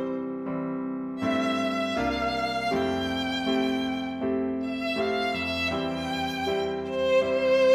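Instrumental background music: a slow melody of held, sustained notes that change about once a second over a steady lower accompaniment.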